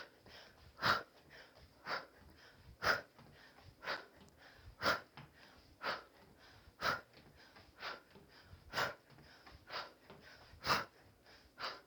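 Sharp, forceful exhales through the mouth, about one a second, timed to each punch of a duck-and-hook kickboxing drill.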